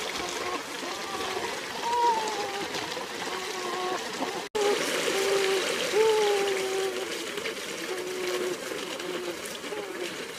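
A small rocky stream rushing and gurgling over stones, with a steady rush of water and many short pitched gurgles. The sound cuts out for a split second about halfway through.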